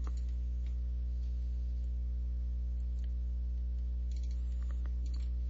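Steady low electrical mains hum on the recording, with a few faint clicks about three to five seconds in.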